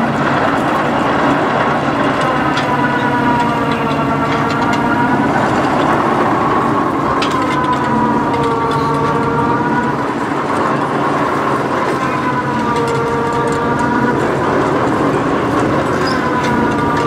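A boom truck's diesel engine runs under load, revving up and easing off again about every four to five seconds as it works the boom's line to hoist hay bales. Its pitch rises and falls with each cycle.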